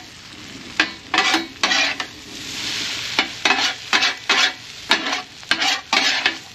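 Food sizzling in a frying pan while a utensil stirs and scrapes it in quick repeated strokes, about two or three a second.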